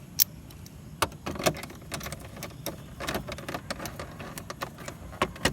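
Irregular light metallic clicks and taps as a motorcycle body bolt is fitted and turned in with an Allen key.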